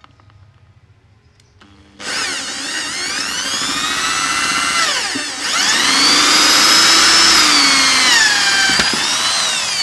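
Electric drill starting about two seconds in and running with a high motor whine as it bores out a stripped M6 bolt hole in an aluminium motorcycle crankcase, enlarging it for a thread-repair coil insert. The motor speed sags and picks up again about halfway through, dips once more later, and starts to wind down at the end.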